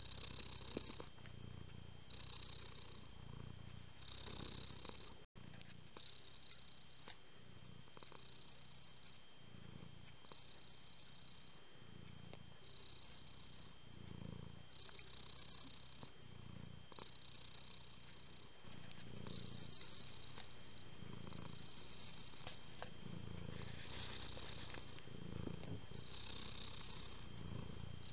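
Domestic cat purring close up, in regular waves about every second and a half, with a brief dropout about five seconds in and a step up in loudness about two-thirds of the way through.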